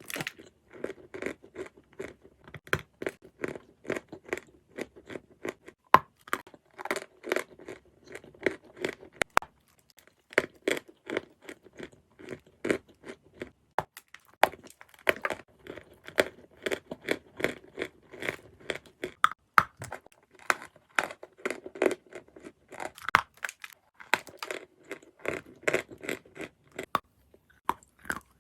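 Edible natural chalk of the 'Halva' kind being bitten and chewed close to the microphone: quick runs of crisp crunches, broken by short pauses about a third and about half of the way through.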